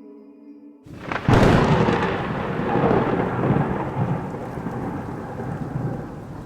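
A sharp thunderclap a little over a second in, rolling off into a long rumble over steady rain. A soft held drone cuts off just before it.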